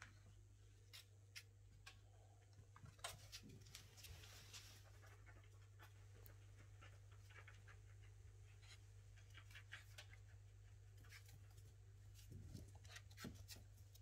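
Near silence with a steady low hum, broken by faint scattered clicks and scratches of puppies' paws and claws scuffling on a towel over a tiled floor as they play.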